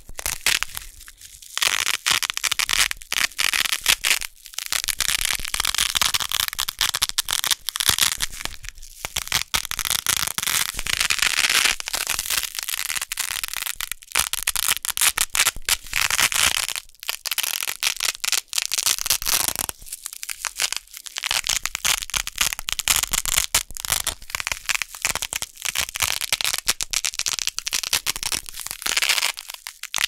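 Wide green hook-and-loop (Velcro) tape being pulled apart, a loud, crunchy crackling tear. It comes in repeated pulls of a few seconds each with brief pauses between them.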